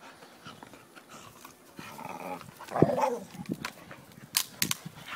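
Two dogs, one a Staffordshire bull terrier, playing tug-of-war with a rope toy, with a short, loud dog cry about three seconds in and a few sharp clicks a little later.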